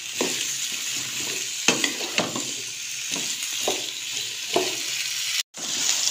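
Raw potato sticks sizzling in hot oil in a karahi, with a spatula stirring them and knocking against the pan about once a second. The sound cuts out for an instant near the end.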